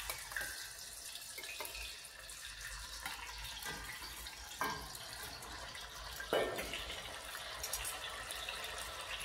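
Pre-blanched batonnet potatoes frying in a pot of oil: a steady bubbling sizzle, with a few clinks of metal tongs against a steel bowl and pot.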